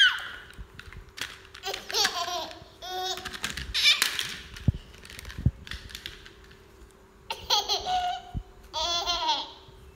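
Baby laughing in short, high-pitched bursts: three close together in the first half, then two more near the end, with a few soft knocks in between.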